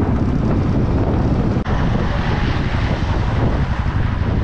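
Loud, steady vehicle rumble: engine and travel noise heavy in the low end, without a break.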